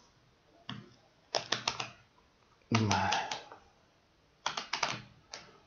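Perforated cardboard tear strip being pulled open on a card box, in three short bursts of rapid snapping clicks as the perforations break.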